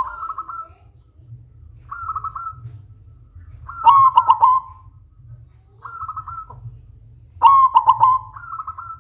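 Silver-morph zebra dove (perkutut) cooing: a loud, stuttering run of rapid coo notes about every three and a half seconds, with softer, slightly higher coo phrases in between.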